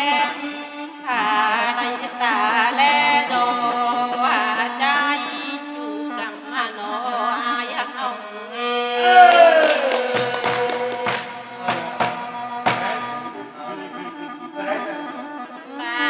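Thái nhuốn folk singing: one voice singing wavering, sliding phrases over a bamboo flute holding long steady notes. The voice is loudest about nine seconds in, on a note that slides down.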